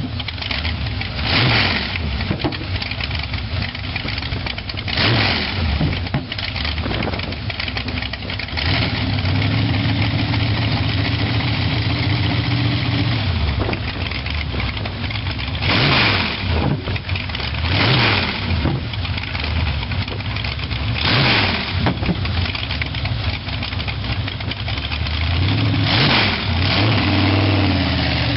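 A car engine idling and being revved in short blips, about six times, each rising and falling in pitch, with steady idling between them.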